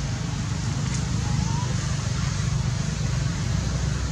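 Steady low rumble and hiss of outdoor background noise, with a faint short rising squeak about a second and a half in.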